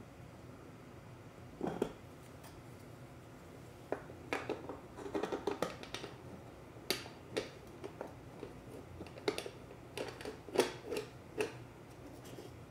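Glass ceiling-light shade being fitted to its fixture: a short click near two seconds, then from about four seconds in a string of light clicks, scrapes and clinks of glass and metal as the centre knob is screwed onto the mounting rod.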